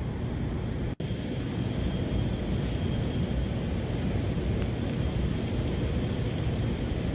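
Steady low outdoor rumble, like wind and distant traffic, picked up on location. It cuts out for an instant about a second in.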